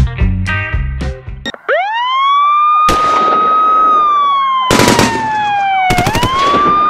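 Rock guitar music cuts off about a second and a half in, and a police siren wail takes over: it rises, holds, slowly falls, then rises again near the end. Over it come a sudden burst of noise and two clusters of rapid sharp cracks.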